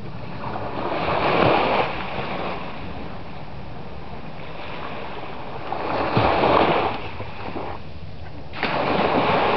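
Small sea waves washing onto a sandy beach: a steady surf hiss that swells louder three times, about a second in, around six seconds in, and again near the end.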